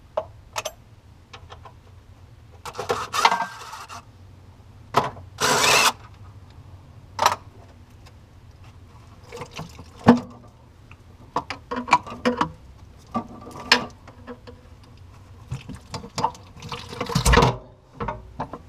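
Hand tools working on the steel chain-case cover of a Bobcat 743 skid steer: scattered clinks, taps and scrapes of metal on metal, with a few longer scraping noises.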